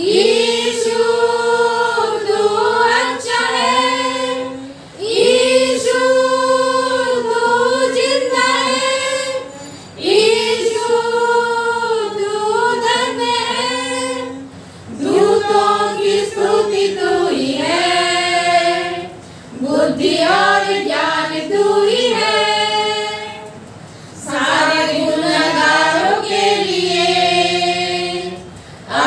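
Women's choir singing a hymn from their hymn books without instruments, in sung phrases of about five seconds, each followed by a brief pause for breath.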